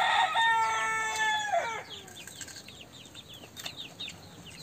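A rooster crows once: one long held call of about two seconds that drops in pitch at the end. Rapid high chirping of small birds runs on underneath.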